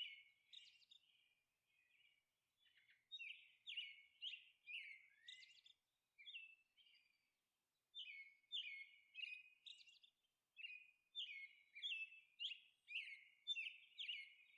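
Faint bird chirping: short downward-sliding chirps repeated about twice a second, in two bouts with a pause of a couple of seconds between them.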